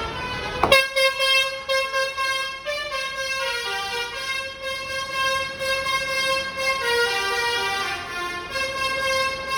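Bus "telolet" multi-tone air horn playing a tune, several horn notes sounding together and stepping to new pitches every second or so. A sharp click just under a second in.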